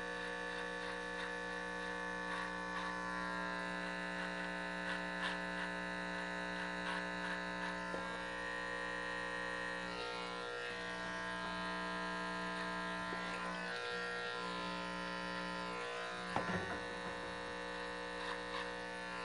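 Corded electric hair clippers running with the guard off, trimming the beard around the lip: a steady buzzing hum with occasional light ticks.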